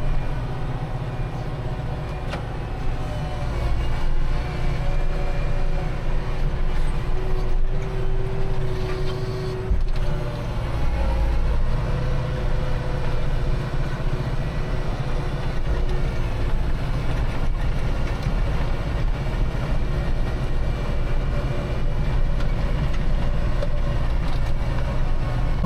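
Kubota tractor's diesel engine running steadily as the tractor drives through deep snow, its engine note rising and falling slightly now and then.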